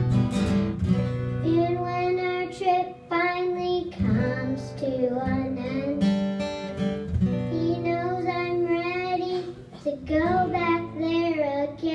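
A six-year-old girl singing a folk song, accompanied by a strummed acoustic guitar and a bowed fiddle.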